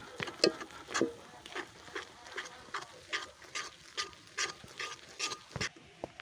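Steel spatula scraping and knocking against a kadai while mashing thick boiled moong dal, in a steady rhythm of about two to three strokes a second.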